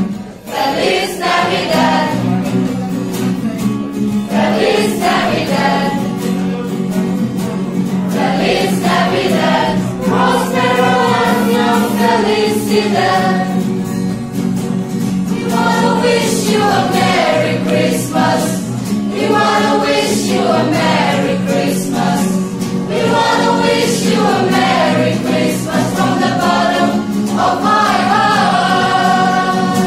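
A small mixed choir of young voices sings a Christmas carol phrase after phrase, accompanied by a strummed acoustic guitar.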